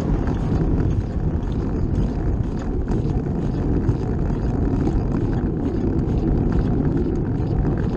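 Wind rushing over the microphone and tyre noise from a bicycle being ridden, with light rapid ticks on top.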